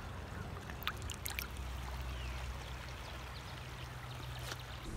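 Shallow river water running and trickling steadily, with a few faint clicks about a second in and again near the end.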